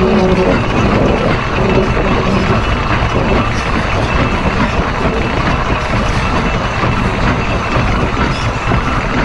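D&RGW 491 narrow-gauge steam locomotive rolling through a curve, heard right at its No. 4 driving wheel: a loud, steady rumble and rattle of steel wheels on the rail.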